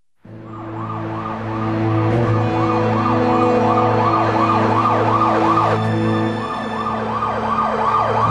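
Police van siren wailing in a fast yelp of about three rising-and-falling sweeps a second, over a steady low hum. It starts just after the opening silence and swells over the first couple of seconds.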